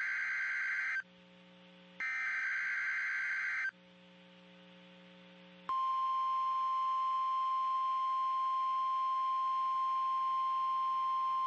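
NOAA Weather Radio Emergency Alert System signal for a tornado watch: the buzzy digital data bursts of the SAME header, one ending about a second in and another following a second later. After a two-second pause, the steady single-pitched 1050 Hz warning alarm tone starts and holds.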